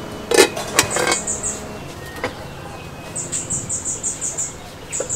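Aluminium pot lid set down on a metal stockpot, clanking two or three times with a short ring in the first second. After that, runs of rapid, very high-pitched chirps, several a second, come and go.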